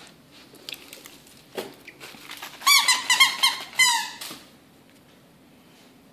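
Squeaker in a plush dog toy squeaking as a puppy bites it: a quick run of short, arching squeaks lasting about a second and a half, starting a little before the middle.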